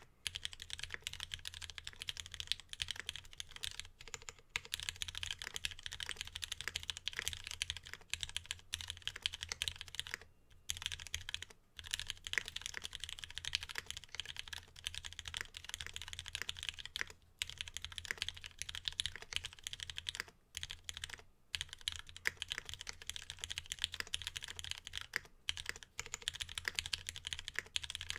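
Fast, continuous typing on a Geon Works F1-8X custom mechanical keyboard with lubed Cherry Retooled black linear switches, an aluminum plate and ABS keycaps: a steady clatter of keystrokes broken by a few short pauses.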